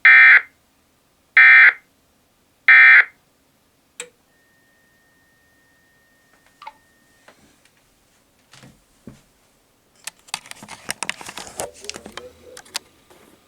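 NOAA Weather Radio's SAME end-of-message code: three short, loud digital data bursts about 1.4 s apart, signalling the end of the weekly warning-alarm test broadcast. After it come a click, a faint steady tone for about three seconds, and near the end a patch of clicking and rustling handling noise.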